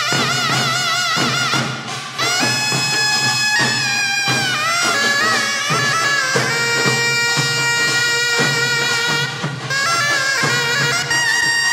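Taepyeongso, the Korean conical double-reed shawm, playing a loud melody. It opens with a wide, fast vibrato, then moves through held notes joined by bends up and down in pitch.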